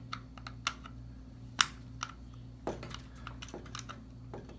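Irregular light clicks and taps of small plastic and metal parts being handled while a screw and metal adapter are fitted to a dishwasher upper-rack rail, with one sharper click about a second and a half in.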